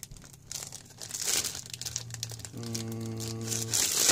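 Clear plastic bag around a plastic model-kit sprue crinkling irregularly as it is handled and shifted.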